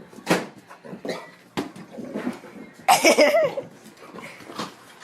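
A dog vocalizing: short cough-like huffs, then a louder wavering howl-like cry lasting under a second, about three seconds in.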